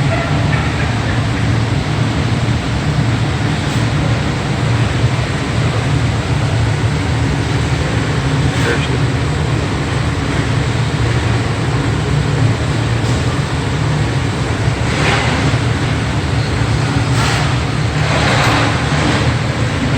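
Steady low hum of factory machinery, with faint voices in the background near the end.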